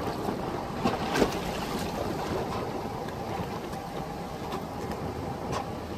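Wind buffeting the microphone over water lapping against a drifting boat's hull, with two sharp knocks about a second in.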